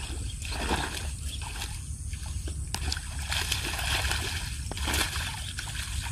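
A hooked fish splashing repeatedly at the water's surface close to the bank as it is reeled in on a bent rod.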